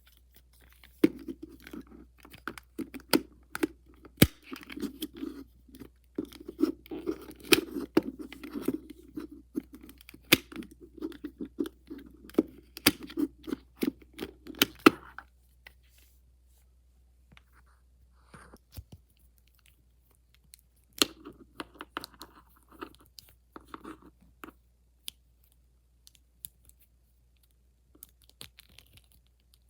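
Fidget toys being handled close up: crinkling and crunching with many sharp clicks, busy through the first half, then sparser with one more short run of handling later on.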